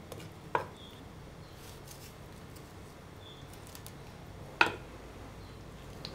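A kitchen knife knocks twice on a cutting board while slicing pickled mustard greens: once about half a second in and again, louder, near the end.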